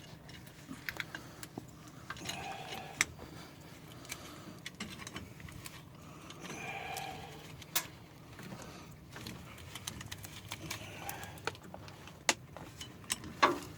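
Scattered metallic clicks and clinks of hand tools working on a pickup's rear disc brake caliper, with a few sharper taps spread through.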